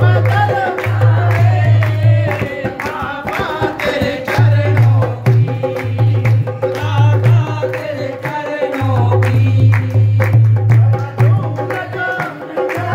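Devotional bhajan performed live: a singer's voice over drum accompaniment with a deep repeating bass beat, and hand-clapping along.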